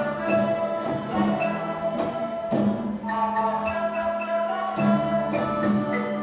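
Children's orchestra of violins, guitars, cello, double bass and marimba playing a lullaby, held string notes over a steady low note, with a new chord coming in every second or so.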